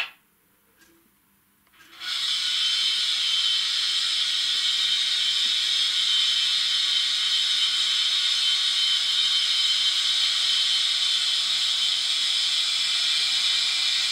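A steady hissing sound effect from the sound decoder of a Piko SU46 PKP diesel locomotive model, played through the model's small speaker; it starts about two seconds in and holds even, with no low engine note beneath it.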